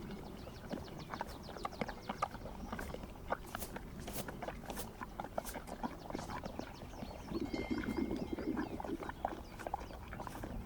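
Horses and donkeys shifting on their hooves, with scattered irregular hoof knocks and clicks, and a louder low burst of sound for about a second and a half near the middle.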